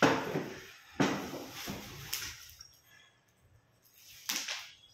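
Bubble wrap on an office chair rustling and crinkling as it is pulled and handled, in a few separate bursts: the loudest at the start, another about a second in, and a last one a little past four seconds in.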